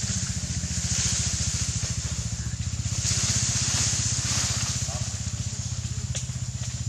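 Steady, low, rhythmic hum of an idling engine, with a hiss that swells and fades over it.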